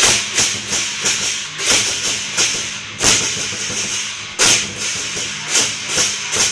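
Lion dance percussion: a drum beaten in a steady rhythm with clashing cymbals, about three strikes a second, with a few louder accented crashes.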